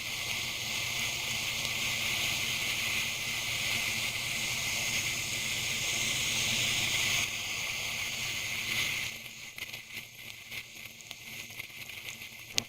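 Steady rushing wind and rain noise from a motorcycle riding through rain, with a faint low engine hum underneath. About nine seconds in the rush falls away, leaving irregular crackling patter.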